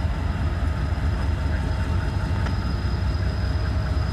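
Norfolk Southern diesel-electric locomotives rolling slowly past at close range as the train heads out, their engines running with a steady low rumble and a faint high whine above it.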